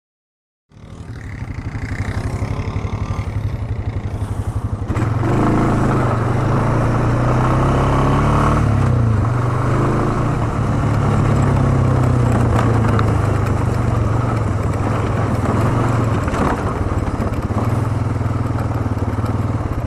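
ATV engine running as the quad rides along a trail, cutting in just after the start and getting louder about five seconds in, its pitch rising and falling with the throttle.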